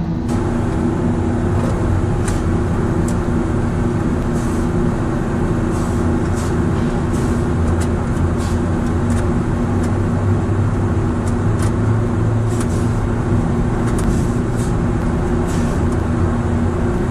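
Refrigeration equipment running with a steady mechanical drone and hum, with a few light clicks and taps of hand tools working in the unit's electrical box.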